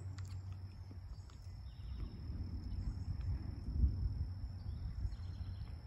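Outdoor field ambience under a gathering thunderstorm: a low, uneven rumble that swells a little under four seconds in, with faint bird chirps and a steady high insect tone above it.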